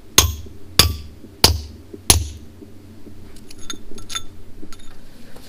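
Hammer striking steel wedges driven into drilled holes in a boulder to split it: four ringing metal-on-metal blows about two-thirds of a second apart, then a few lighter metallic taps.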